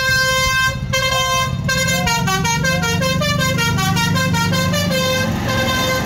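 Tour bus's Basuri telolet horn, a multi-tone musical air horn, sounding two held notes and then playing a quick run of changing notes as a melody, with the bus's engine running underneath.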